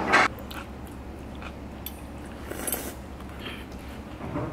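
Someone eating spicy cold noodles with metal chopsticks from a brass bowl: a short slurp at the start and another about two and a half seconds in, with chewing and a few light clicks of the chopsticks against the bowl.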